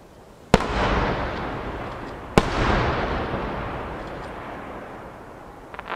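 Two large 12-inch (size-10) aerial firework shells bursting about two seconds apart, each a sharp bang followed by a long rumbling echo that slowly fades. Another rumble starts near the end.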